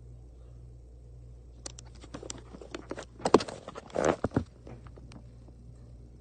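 Harbor Breeze ceiling fan running with a steady low hum. Partway through comes a run of irregular clicks and knocks, loudest near the middle, that stops about two-thirds of the way in.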